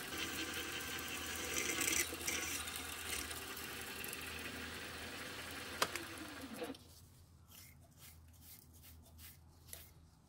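Small mill running with a drill cutting through 1/8-inch steel plate, boring a row of undersize holes to rough out a slot. A click comes just before six seconds in; soon after, the cutting noise drops away, leaving faint short strokes of a brush sweeping chips off the plate.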